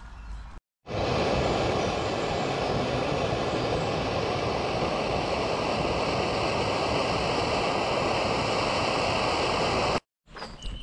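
A loud, steady rushing noise with no rhythm or change in pitch, cut in abruptly about a second in and cut off just before the end.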